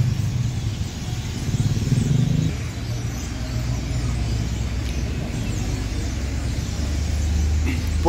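Dense, continuous chatter of a large flock of blackbirds ('pájaros prietos') roosting in the trees, over a low rumble of road traffic that settles into a steady low hum near the end.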